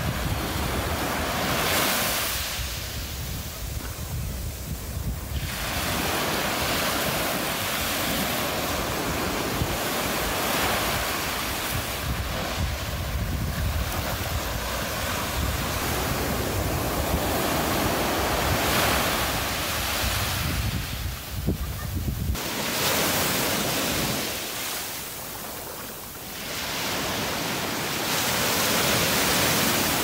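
Small waves washing up a sandy beach, the surf swelling and fading every few seconds. Wind rumbles on the microphone under most of it and stops suddenly about two-thirds of the way through.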